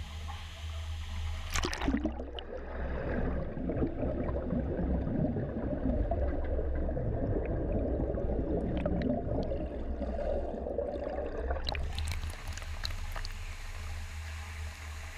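Water spraying and splashing in a car-body paint-shop pretreatment line over a steady low hum. About two seconds in the sound turns muffled and gurgling, with the microphone under the liquid, and the hiss of spray returns about twelve seconds in.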